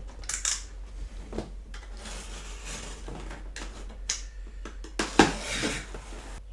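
Monitor box being unpacked by hand: cardboard and packaging rustling and scraping with scattered clicks, and a sharp knock about five seconds in.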